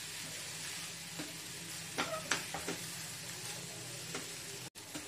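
Rice with paneer and masala sizzling gently in a pan on a gas flame while being stirred and turned with a silicone spatula, with a few scraping strokes about two seconds in.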